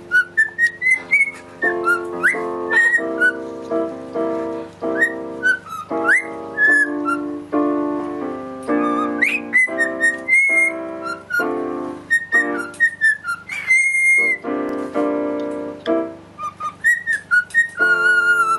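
A cockatiel whistling along to a piano being played: short whistled notes and quick upward swoops over the piano's notes and chords, with one longer held whistle about two-thirds of the way through.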